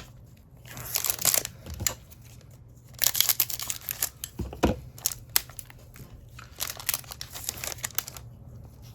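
Plastic packaging crinkling in several bursts of crisp crackling as trading cards are handled.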